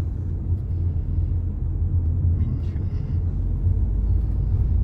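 Steady low rumble of a moving car's engine and tyres heard from inside the cabin while driving.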